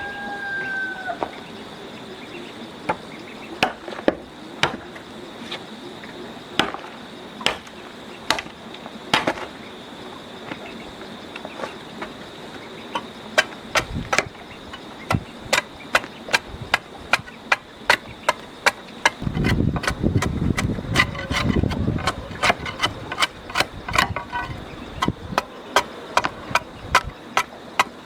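Sharp, regular strikes of a tool on a hard surface, scattered at first and then about two a second from about halfway in, over a steady high insect drone. A rooster's crow trails off at the very start.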